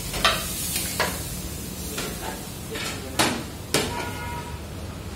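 Metal wok and cooking utensil knocking and scraping while cooked food is tipped out of the wok onto a plate. There is a string of sharp clanks, the loudest two about three seconds in, over a steady low background noise.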